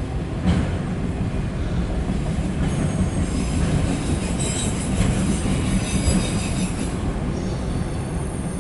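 Loaded autorack freight train rolling past, a steady rumble of steel wheels on rail. High-pitched wheel squeal comes in about three seconds in and carries on to near the end.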